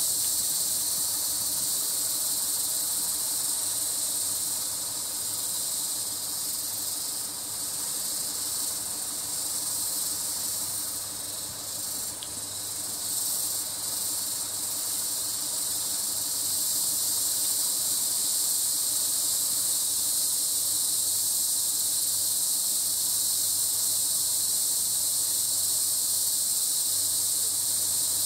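Steady, high-pitched chorus of insects, a continuous shrill buzz.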